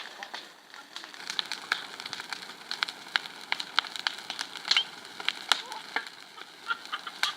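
Bonfire crackling and popping, with a burning tyre in it: many sharp, irregular snaps over a steady hiss.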